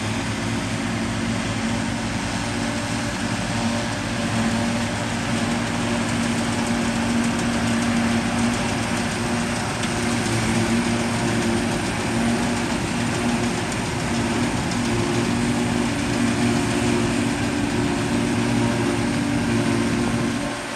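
Farm tractor engine running steadily while working a field row, with a constant machinery noise over the engine note.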